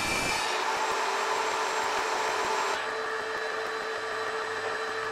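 Table saw running steadily as a crosscut sled carries a half-inch glued-up oak panel through the blade to cut it to length. A higher hiss in the first part drops away about three seconds in, leaving the saw's steady hum.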